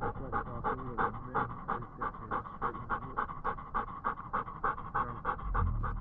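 Belgian Malinois panting hard and fast, about three breaths a second in a steady rhythm. A brief low rumble comes in near the end.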